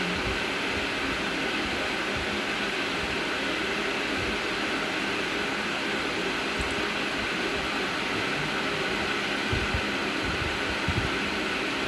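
Steady stadium crowd din from a televised football match, heard through the TV's speaker and picked up by a phone, with a few faint low thumps near the end.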